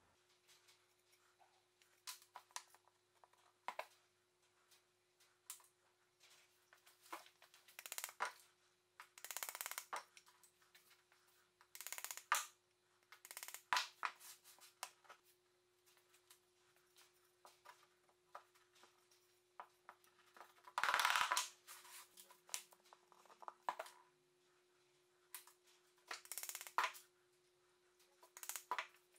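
Workbench handling sounds: MDF panels and small wooden tenons being picked up, slid and set down on an MDF bench top, with scattered knocks and scrapes and one longer scraping rustle about two-thirds of the way through. A faint steady hum runs underneath.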